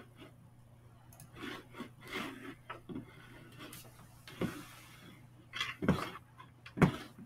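Scattered rustling and knocking of handling noise at a desk, with a few sharp thumps in the second half, the last two loudest, over a steady low electrical hum.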